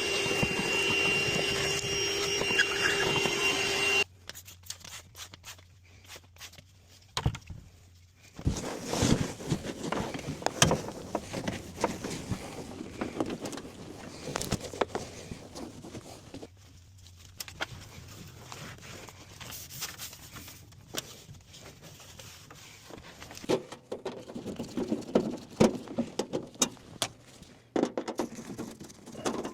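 A steady hum with a high whistling tone that cuts off suddenly about four seconds in, followed by scattered clicks, knocks and scrapes of sheet-metal furnace panels being handled and taken off.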